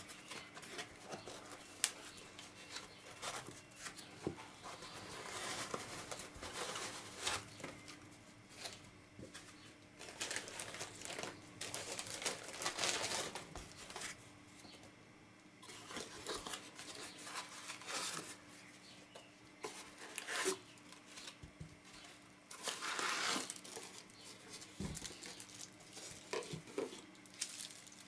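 Unboxing by hand: irregular rustling and crinkling of a cardboard box, soft foam packing and bubble wrap being pulled apart and unwrapped from a glass pyramid.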